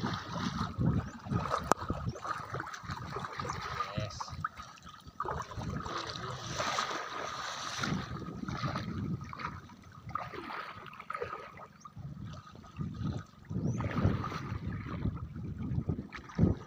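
Shallow seawater splashing and sloshing irregularly around the legs of people wading through it.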